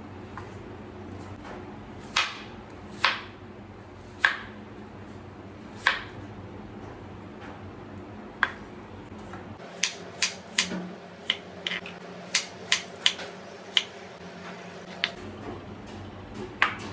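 Irregular sharp clicks and knocks of household objects being handled, at first a second or two apart, then in a quicker run from about ten seconds in, over a low steady hum.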